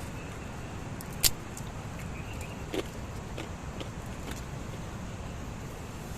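Strong wind blowing, heard as a steady low rumble. A sharp click stands out about a second in, with a softer knock near three seconds and a few faint ticks.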